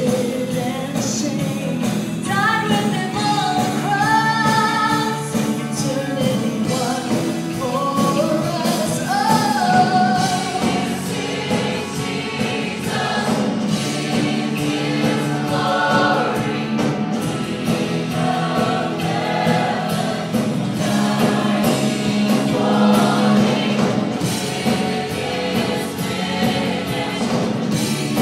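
Gospel song with a choir singing over instrumental backing.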